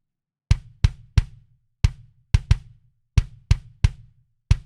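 A kick drum (bass drum) sample playing a short repeating pattern, about ten hits in groups of three, each a quick low thump with a sharp click on top that dies away fast. It is the kick as it stands, untreated, before any envelope shaping.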